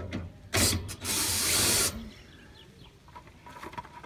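Cordless drill driving the screw of an RV scissor-jack stabilizer. It runs in a short burst about half a second in, then steadily for about a second, starting and stopping sharply, as the jack is run down tight.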